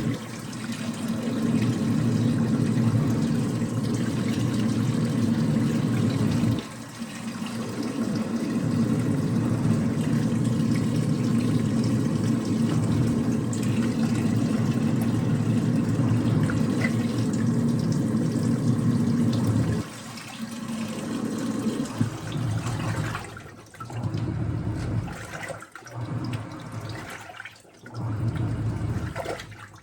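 Washing machine running a spin cycle: a steady low hum with water rushing through it. From about two-thirds of the way in, it comes in uneven surges with short drops between them.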